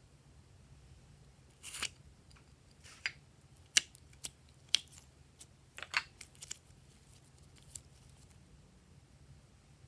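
A scattered series of short, crisp clicks and snips, about ten of them, spread irregularly over several seconds.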